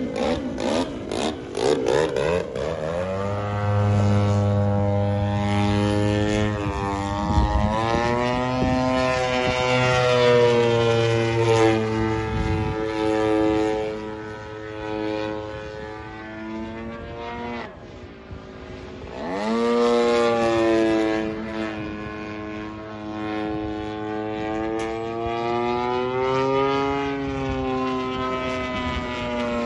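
Radio-controlled model airplane's engine and propeller running, the pitch sliding up and down as it manoeuvres. Its pitch drops low about eighteen seconds in, then climbs again. A few rattly clicks in the first couple of seconds.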